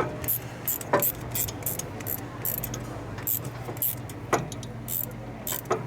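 Irregular metallic clicks and clinks of hand tools working on a stuck bolt on a motorcycle's rear wheel, over a steady low hum.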